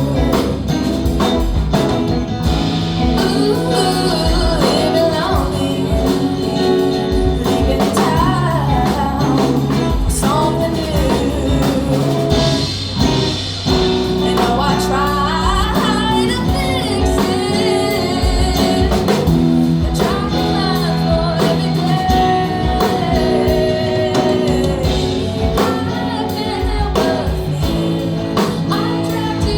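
Song with a singing voice over guitar and drums.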